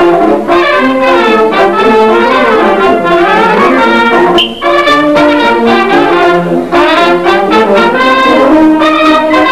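Brass band playing a tune in short phrases of held notes, with brief pauses about four and a half and seven seconds in.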